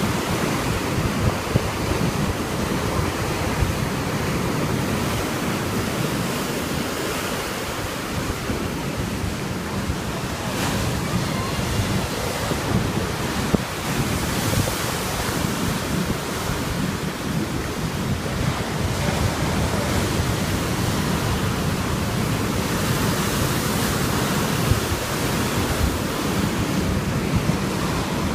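Sea waves washing onto the shore in slow swells, with wind buffeting the microphone.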